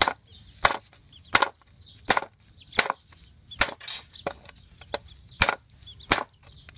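Knife or cleaver chopping on a wooden cutting board: single sharp strokes in a steady rhythm, about one every 0.7 seconds.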